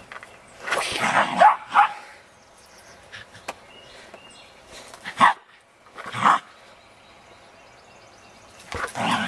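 Small dogs, West Highland white terriers, barking: a quick run of barks about a second in, two single barks midway, and another near the end.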